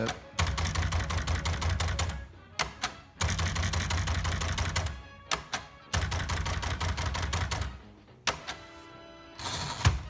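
1960 Smith Corona Galaxie portable typewriter clattering through three quick runs of keystrokes and carriage steps, each about two seconds long, as tab stops are set every ten spaces. A sparser clatter follows near the end.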